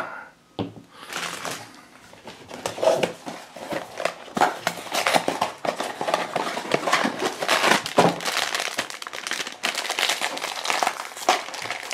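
Crinkling and rustling as a cardboard blind box is opened and the black plastic wrapper bag inside is handled and crumpled, in an irregular run of crackles.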